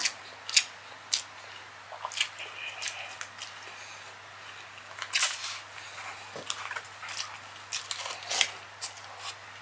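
Close-miked eating sounds: wet mouth smacks and chewing of a sauced mussel and rice eaten by hand, a string of short irregular clicks with louder ones about five and about eight seconds in, over a faint low hum.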